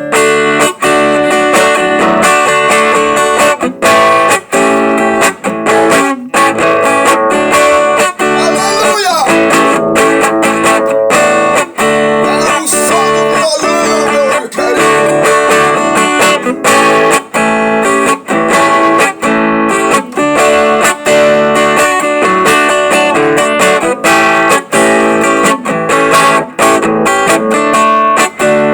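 Acoustic guitar (violão) played solo, plucked and strummed notes and chords ringing on continuously, with a few sliding notes in the middle.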